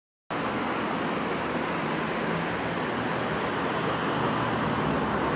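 Steady road traffic noise, a continuous even rush of passing vehicles.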